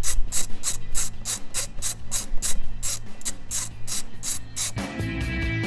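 Ratchet wrench clicking in a steady rhythm, about five clicks a second, then background music begins near the end.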